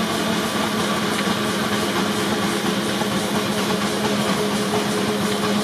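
Advance steam traction engine running steadily under load on a dynamometer, with a constant hum over the even noise of the engine.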